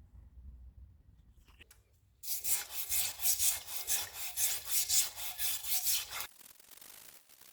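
Rapid back-and-forth hand strokes of an abrasive, such as a file or sandpaper, scraping on garden shear metal, about four strokes a second. It starts about two seconds in and stops suddenly about four seconds later.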